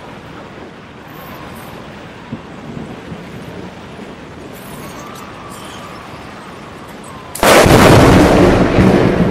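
Steady hiss of rain, then a loud thunderclap cracks about seven seconds in and rumbles on.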